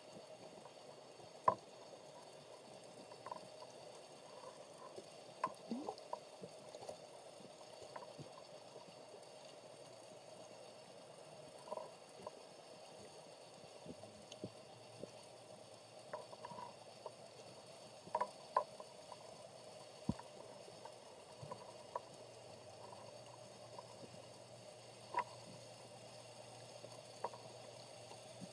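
Underwater sound picked up through a camera's waterproof housing: a faint, steady hum and hiss with scattered, irregular clicks and short knocks, the sharpest about a second and a half in.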